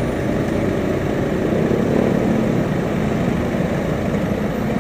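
Steady roadside traffic noise with a vehicle engine running.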